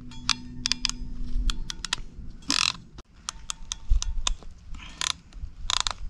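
KFCPtec ratcheting wire crimper clicking as it is worked onto a heat-shrink butt connector: a run of a dozen or so sharp metallic clicks with a faint ring, uneven in spacing. Two short swishes, one about halfway through and one near the end.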